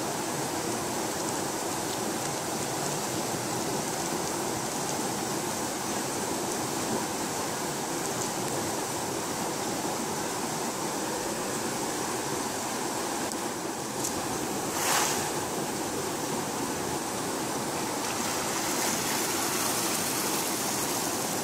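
Steady rushing of turbulent water pouring out through a concrete dam's open gates, with one short louder burst about fifteen seconds in.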